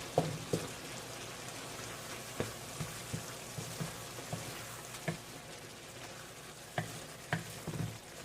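Meat-and-shrimp sauce sizzling and simmering in a pan with a steady hiss, while a cooking utensil knocks against the pan now and then as it is stirred.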